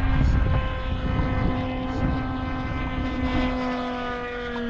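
Radio-controlled model airplane engine droning in flight, one steady buzzing note whose pitch sinks slowly, with wind rumble on the microphone.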